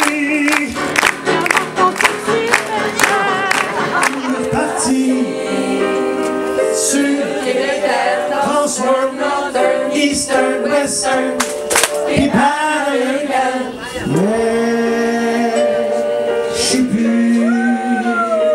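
Live music: a man sings into a microphone over electric keyboard accompaniment. He holds long notes with vibrato, and the pitch bends and slides in the last few seconds.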